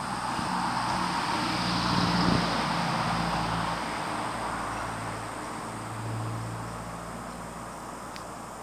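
A motor vehicle going by: a low engine hum with road noise that swells to its loudest about two seconds in, then slowly fades.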